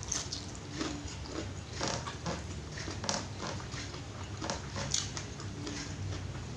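Close-miked chewing and lip-smacking of a person eating rice with pecel and fried tempe mendoan: irregular wet mouth sounds and small crunches.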